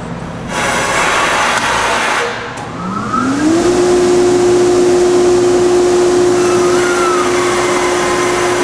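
Compressed air hissing out of the receiver tank for about two seconds. Then the Atlas Copco GA-11 rotary screw compressor's 15 hp motor starts as the pressure drops: its pitch rises for about a second, then it runs steadily.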